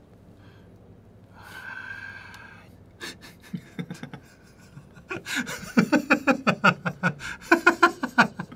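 A man's short breathy gasp, then laughter starting about three seconds in, getting louder and quicker from about five seconds in, as rapid rhythmic ha-ha pulses.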